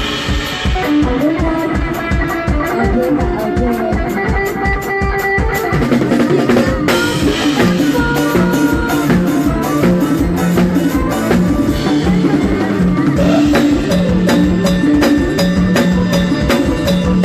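A live band plays with a drum kit keeping a steady beat over bass and melody instruments.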